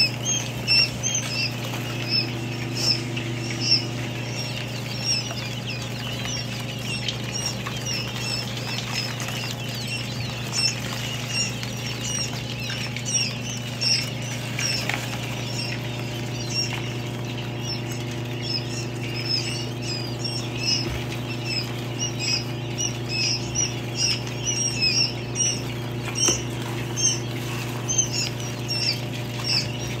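A crowd of newly hatched quail chicks peeping in many short, high cheeps, over the steady low hum of the incubator cabinet.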